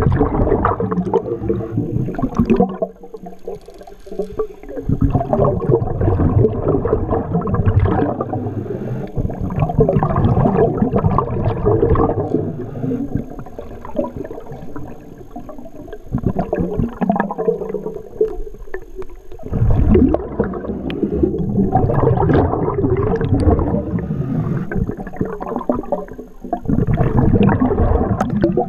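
Scuba diver's exhaled bubbles gurgling past an underwater camera housing. They come in repeated bursts a few seconds long, with quieter gaps between breaths.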